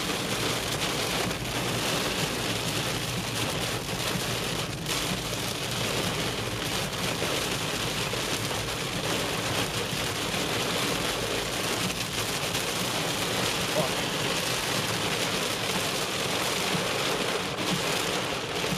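Heavy rain falling on a car's roof and windscreen, heard from inside the car as a dense, steady hiss.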